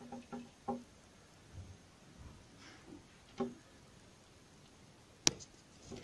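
Long-tailed tit tapping its beak on a window pane: a few soft, quick taps at the start, another about three and a half seconds in, and one sharp tap a little after five seconds.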